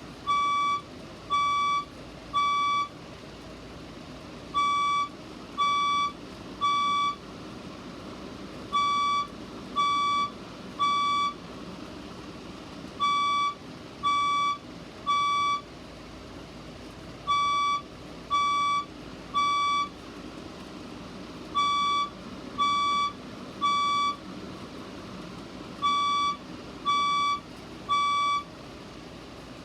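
Fire alarm speaker-strobe sounding its beep tone in the temporal-three evacuation pattern: three high half-second beeps, then a short pause, repeating about every four seconds.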